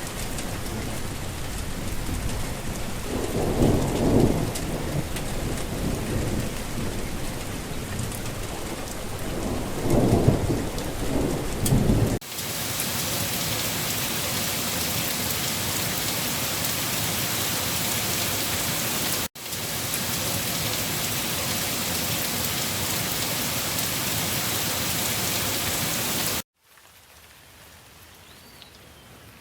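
Heavy rain falling, with two low rolls of thunder in the first twelve seconds. The sound then switches abruptly to a brighter, steady rain hiss, and near the end drops suddenly to much fainter rain.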